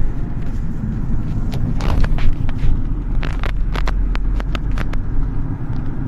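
A moving car's road noise heard from inside the cabin: a steady low rumble, with a run of sharp clicks and knocks from about a second and a half to five seconds in.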